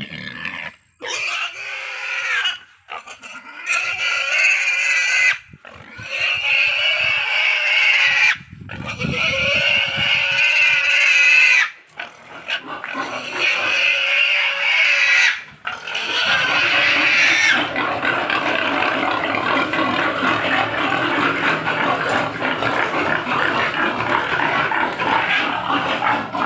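Young pig squealing loudly and repeatedly in distress as it is lifted and carried in a man's arms: long squeals of a few seconds each, broken by short gaps. Over roughly the last third the squealing runs on without a break.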